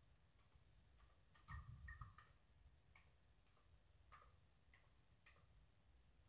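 Faint clicks of computer keyboard keys as a short phrase is typed one key at a time, at an uneven pace with a quick run of several keystrokes about one and a half seconds in.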